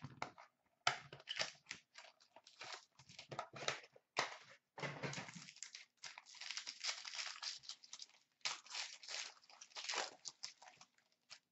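Cardboard of a hockey card box and its plastic-wrapped pack being handled and opened: quick bursts of crinkling, rustling and tearing with small clicks, busiest in the second half.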